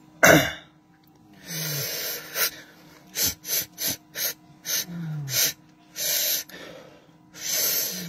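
A man's forceful breathing: a loud sharp puff, then a series of hissing exhalations and quick short puffs, as if blowing something out of his body in a qigong-style breathing exercise. A faint low falling tone recurs about every three seconds.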